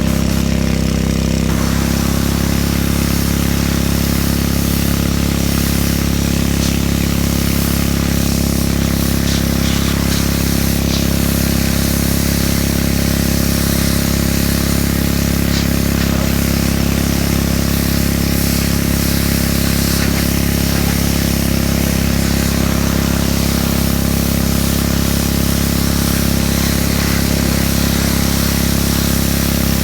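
Pressure washer running steadily: its motor gives a constant hum, with an even hiss of spraying water over it.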